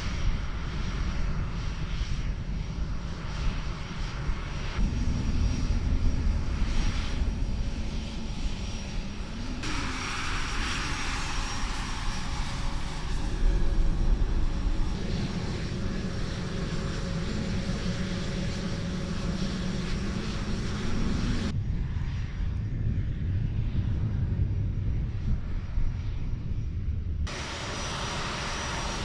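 The two TF34 turbofan engines of an A-10C Thunderbolt II running on the ground: a steady jet whine over a low rumble. The tone and level change abruptly a few times.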